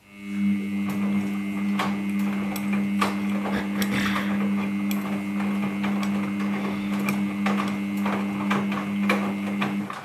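Samsung Ecobubble 8 kg front-load washing machine turning its drum during the wash. There is a steady motor hum, and the wet clothes and water slosh and knock against the drum. The sound rises quickly at the start and stops abruptly near the end, as the drum pauses between turns.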